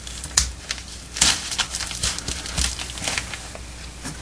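Plastic tarp crinkling and rustling as its edge is folded over and pressed down with duct tape, with a couple of sharper crackles in the first second and a half.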